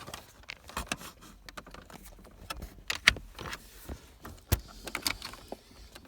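Scattered plastic clicks and knocks with light rustling as wiring connectors are handled and plugged back into a Hummer H3's HVAC control module, the sharpest clicks about three, four and a half and five seconds in.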